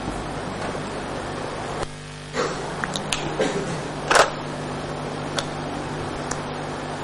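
Steady electrical hum under room noise, broken by a handful of short clicks and taps, the loudest about four seconds in.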